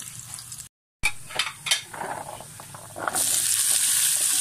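Frying pan of corned beef sizzling softly, then a brief dropout, a few knocks and clatters, and from about three seconds in a loud, steady frying sizzle as diced raw potatoes are tipped into the hot oil.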